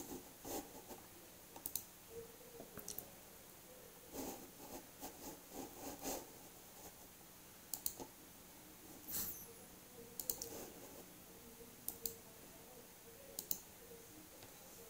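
Soft, scattered clicks from a computer mouse and keyboard, about a dozen at irregular spacing, in a small room.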